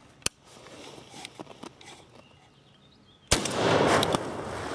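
A single shotgun shot from a Winchester SX3 semi-automatic about three seconds in: one sudden loud blast with a ringing tail of about a second, preceded by a sharp click shortly after the start.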